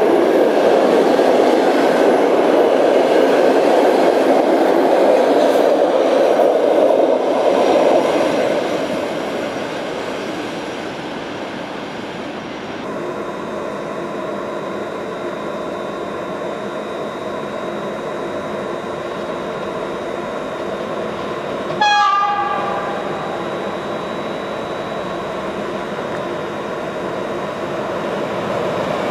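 Passenger carriages rolling past close by, then, after a change of scene, an EP09 electric locomotive with its intercity train approaching, giving one short horn blast about three quarters of the way through; the train noise grows near the end as it draws near.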